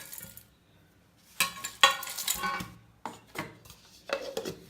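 Hard dried whole spices and a metal dish or spoon clattering as the spices are tipped into a steel mixer-grinder jar, in a few short rattles about a second apart.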